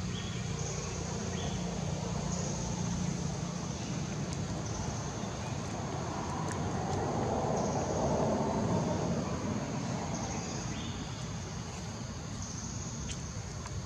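Outdoor background noise: a steady low rumble that swells and fades around the middle, with a high-pitched buzz coming and going in stretches of a second or two.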